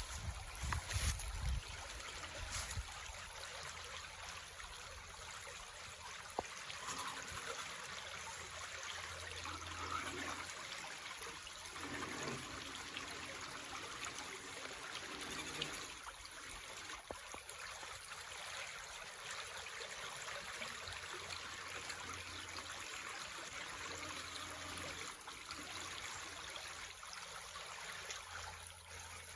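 Shallow stream of water trickling and babbling steadily.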